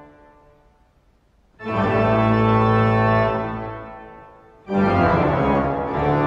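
Organ playing long held chords: one dies away at the start, then after a short gap a loud chord comes in at about a second and a half and slowly fades, and another is struck near five seconds in and held.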